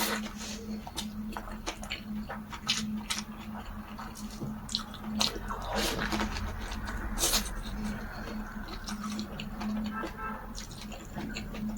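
Close-up eating sounds: someone biting and chewing a pancake wrap with fatty cured pork, with irregular wet smacks and clicks, over a steady low hum.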